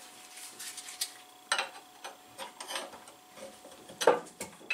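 Scattered metal clicks, scrapes and knocks as a PM-727M mill's gearbox is worked loose and lifted up out of the head housing, the loudest knock near the end.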